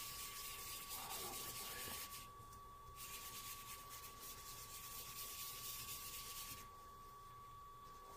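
Gloved fingers rubbing charcoal into paper to blend the shading: a soft, papery hiss in two stretches, with a short pause about two seconds in, stopping about six and a half seconds in.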